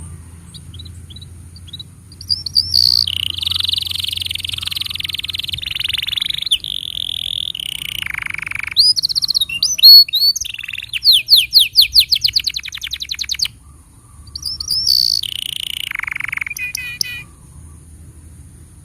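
Domestic canary singing in two long phrases with a short break between them: sustained buzzy rolls, then a fast trill of rising whistled notes at about eight a second, then more rolls.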